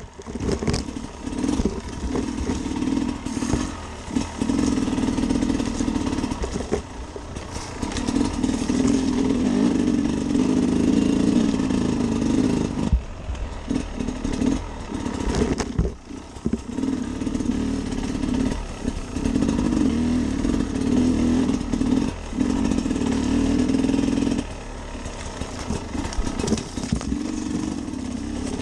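Sherco SE 300 Factory two-stroke enduro engine running under load on a dirt trail, its note rising and falling as the throttle opens and closes. It drops away briefly about 13 and 16 seconds in.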